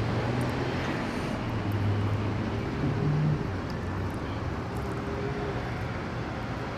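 A steady low engine rumble over a background hiss, swelling slightly a couple of seconds in.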